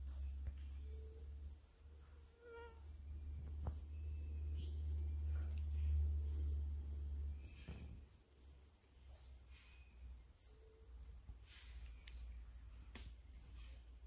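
Jungle insects calling in a continuous high shrill with a fast, even pulse, over a low rumble and a few faint clicks.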